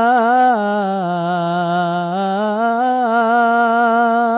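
A man's voice chanting the adhan, the Islamic call to prayer, drawing out one long melismatic note of 'ḥayya ʿalā l-falāḥ'. The pitch steps down about a second in and rises back about two seconds in, with short wavering ornaments near the start and the end.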